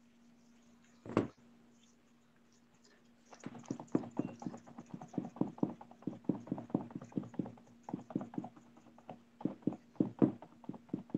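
Small natural sponge dabbing paint onto a stretched canvas: a rapid run of soft taps, about four a second, starting a few seconds in, with a brief lull before a last flurry. A single sharp knock comes about a second in.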